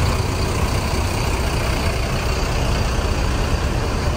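Diesel engines of parked tour buses idling: a steady low rumble.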